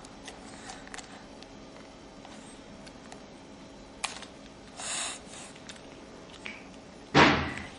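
Small scattered clicks and handling noise over a low steady hum, with a short hiss about five seconds in and a loud, short thump near the end.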